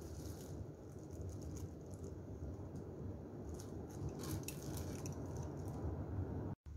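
Faint crinkling of a clear plastic food-prep glove and soft small clicks as sliced salted-egg wedges are handled and set on a ceramic plate, over a steady low hum. The audio cuts out abruptly near the end.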